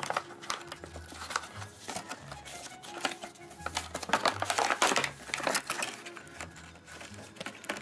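Plastic blister packaging and its cardboard backing crinkling and crackling as they are pulled apart, loudest about four to five seconds in.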